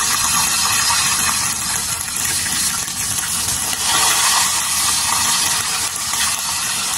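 Hot oil sizzling steadily around cornstarch-coated chicken pieces deep-frying in a pot, during the second fry that crisps the coating.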